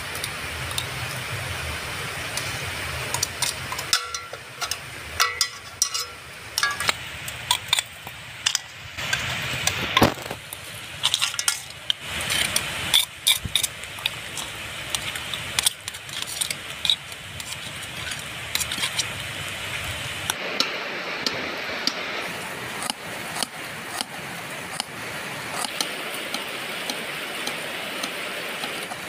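Irregular clinks and taps of a knife and snail shells against a metal tin as giant African land snails are cracked and cleaned by hand, the clicks thickest in the middle stretch and thinning out towards the end.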